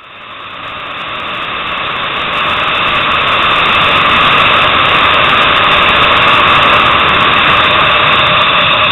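Motorcycle ridden at speed on a race track, heard from an onboard camera: engine and wind noise. It fades in over the first few seconds and then runs steady and loud.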